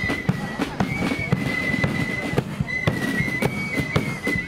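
Marching flute band playing: flutes carry a high melody of mostly held notes over a driving beat of snare drum, bass drum and cymbals.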